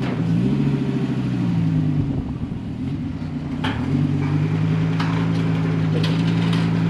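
Dodge Viper SRT's 8.4-litre V10 running at low revs as the car is driven slowly onto a trailer. The revs rise, ease off about two seconds in, then rise again and hold steady.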